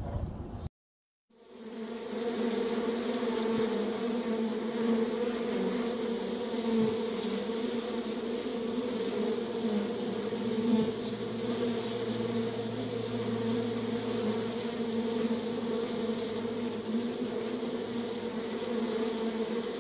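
A colony of honeybees buzzing on a hive frame: a steady, even hum with a clear low pitch. It starts about a second in, after a brief silence.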